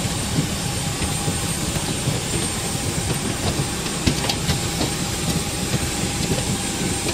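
Jet aircraft noise on an airport apron: a loud, steady rush with a thin high whine running through it.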